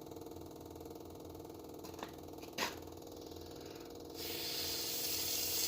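The Tennant 255 sweeper's fuel pump humming steadily with the key on, not yet pumping fuel through the new line. There is a single click about two and a half seconds in, and a steady hiss comes in about four seconds in.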